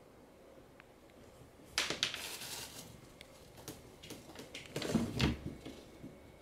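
Cat rummaging in a plastic storage bin of toys: rustling and plastic knocking. A dense burst of rustling comes about two seconds in, then scattered knocks and heavier bumps around five seconds in.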